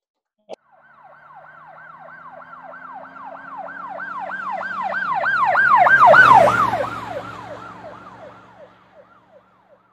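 An emergency vehicle's siren going past: a fast falling yelp repeating about three times a second over engine noise, growing louder to a peak about six seconds in, dropping slightly in pitch as it passes, then fading away. A short click comes just before it starts.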